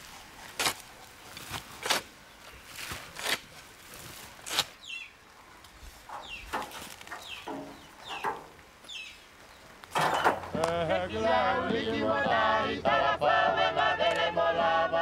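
Scattered knocks and clatter of yard work, then a series of short bird calls that fall in pitch. About ten seconds in, a choir starts singing unaccompanied.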